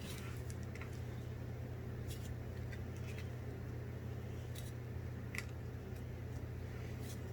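Pokémon trading cards being handled and slid past one another as a booster pack is flipped through: scattered short ticks and swishes of card stock, over a steady low hum.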